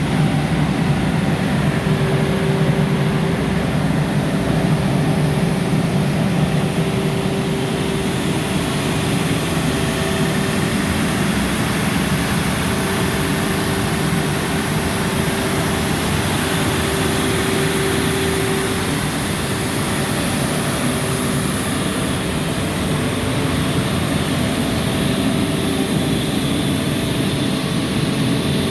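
Atlas Copco XAS 950 portable air compressor's Tier 4 Final diesel engine running steadily, with a constant low hum and a held tone over it, slightly louder for the first several seconds.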